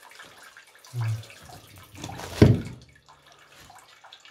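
Faint dripping and trickling of water from a leaking pipe joint, with one loud knock about two and a half seconds in.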